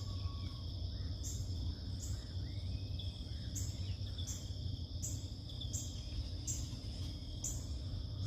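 Insects calling steadily: a continuous high trill with a higher pulsing chirp repeating about every three-quarters of a second, over a steady low rumble, with a few faint bird calls.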